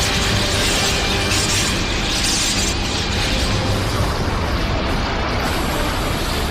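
Continuous loud, dense rumbling of explosion and blast sound effects mixed over music, with no break.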